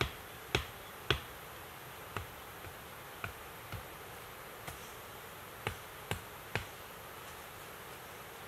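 A series of about ten sharp, irregularly spaced knocks, two to three in the first second and a quick run of three about two-thirds of the way through, over a steady background hiss.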